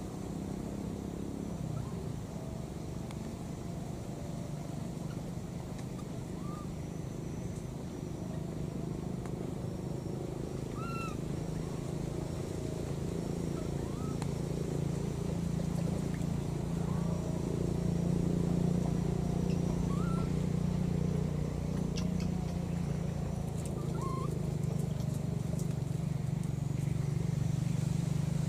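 Baby macaque giving short, faint squeaking calls every few seconds, each a quick rise and fall in pitch, over a steady low hum that is the loudest sound throughout.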